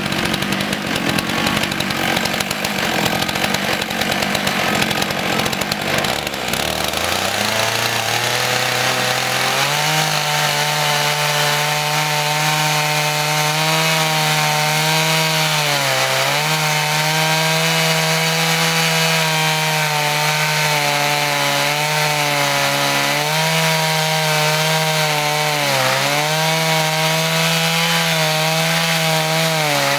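Stihl 661 two-stroke chainsaw, on a 42-inch bar with a full-skip chain, ripping a black walnut log lengthwise on a chainsaw mill. The engine climbs in pitch between about six and ten seconds in, then holds a steady high note under load, dipping briefly twice as it bogs in the cut.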